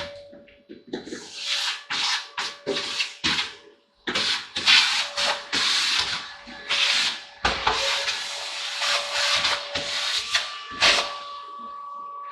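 Vacuum cleaner sucking up building dust, with a steady motor whine under uneven surges of rushing air as the nozzle works over surfaces. A higher whine joins near the end.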